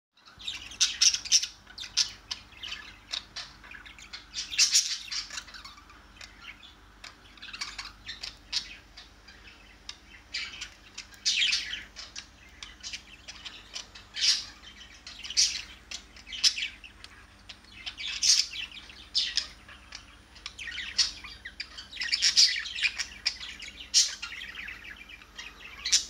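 Pet budgerigars chirping in their cage: a string of short, sharp, high chirps at an irregular pace, with a few louder calls among them.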